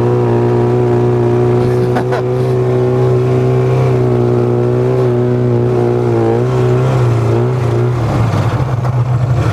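1995 Polaris Indy Trail 500 snowmobile's two-stroke engine running steadily at speed under way. Its note wavers and then drops to a lower, rougher sound near the end. The owner thinks this sled most likely needs seals, gaskets or engine work.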